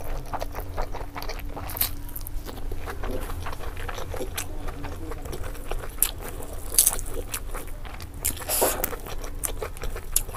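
Close-miked eating sounds: wet chewing, lip smacks and sticky finger-licking clicks as chicken curry and rice are eaten by hand, with a few sharper smacks spread through and a steady low hum underneath.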